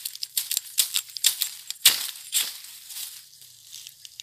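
A bamboo shoot's tough outer sheath being cut with a bolo knife and peeled back by hand: a quick, uneven run of crisp scraping and crackling strokes, the loudest about two seconds in.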